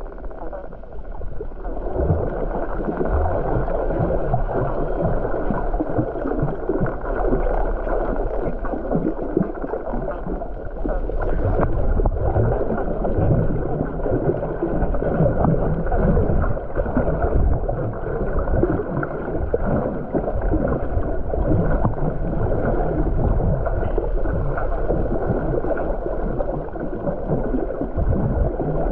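Muffled, steady rush and gurgle of water heard through a camera held underwater.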